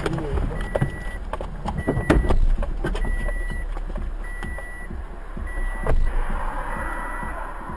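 A short, high electronic beep repeating about once a second inside a car's cabin as the car rolls to a stop, over a low steady rumble. A few sharp knocks come in the first two seconds.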